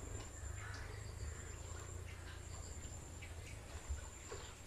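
Quiet outdoor ambience: a thin, steady high insect drone over a low rumble, with a few faint scattered chirps.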